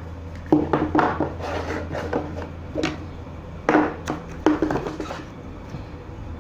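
Cardboard boxes and small accessories being handled and shifted on a wooden tabletop: a run of knocks and scrapes, the sharpest about half a second in and again around four seconds.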